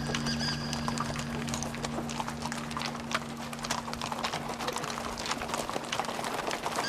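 Horse hooves clip-clopping in a quick, irregular run of strikes, over a low musical drone that fades out about halfway through.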